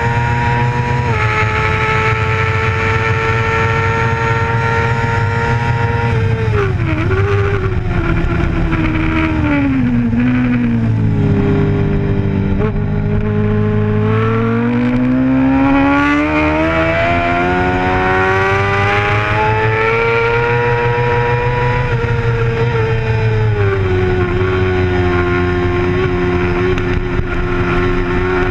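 Sport bike's engine at racing revs, heard onboard. It holds high and steady, then the revs fall in several steps from about six seconds in as the bike slows for a corner. About twelve seconds in they climb steadily as it accelerates hard out of the corner, then ease off and hold steady near the end.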